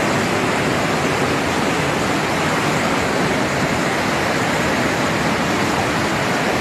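Torrential cloudburst rain pouring down in a steady, dense hiss.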